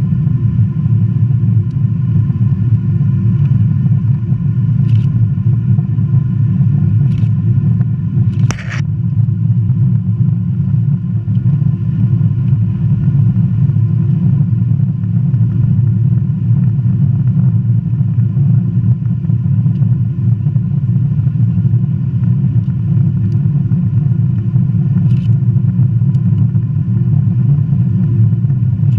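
Boeing 777-200ER's Rolls-Royce Trent jet engines heard from inside the cabin: a steady low rumble with several steady whining tones above it. A short sharp click sounds once about eight and a half seconds in.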